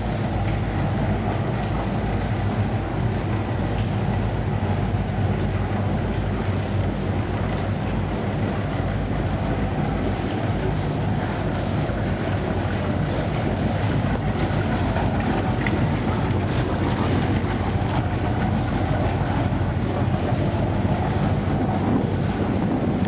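Steady wind buffeting the microphone over a low, continuous hum, with no distinct events.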